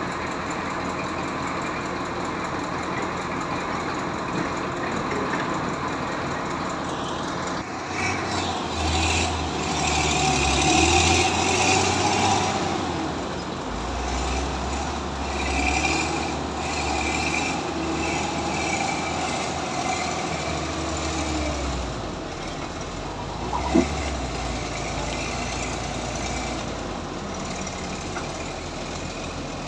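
Heavy diesel engines of a SANY SY205C excavator and a Kato 30-ton crane truck working under load to drag the mired crane out of the mud. The engines rev up and down, loudest about a third of the way in and again just past halfway. There is one sharp knock about three quarters of the way in.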